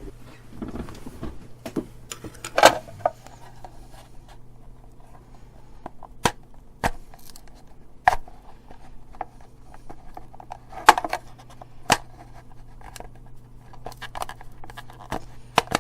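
Irregular sharp clicks, taps and scrapes of a hard plastic case being handled and prised at with a spudger to pop its snap-fit catches.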